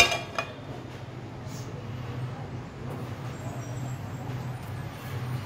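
Rava-coated halwa (black pomfret) pieces frying in shallow oil in a pan: an even sizzling hiss over a steady low hum. A sharp metal clink sounds at the very start, with a smaller one just after.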